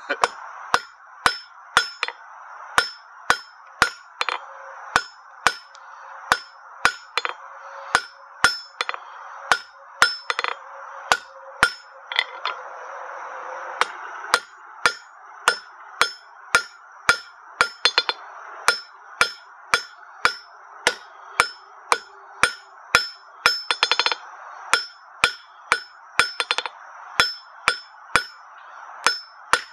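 Blacksmith's hand hammer striking a hot half-inch square steel bar on an anvil at a steady pace of about two blows a second, drawing the end out to a point. Each blow leaves a short, high ring.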